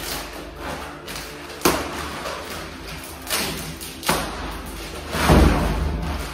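Roll-packed mattress in its plastic wrap being handled and tipped over: a few sharp knocks and plastic rustling, then a heavy thud about five seconds in as it comes down on the floor.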